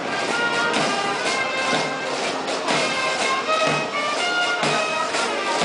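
Military band playing a march, sustained instrumental notes over a steady beat about once a second.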